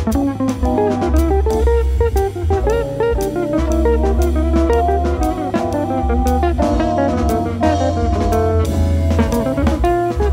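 Swinging soul-jazz instrumental: Hammond organ over a bass line, with guitar and a drum kit keeping time.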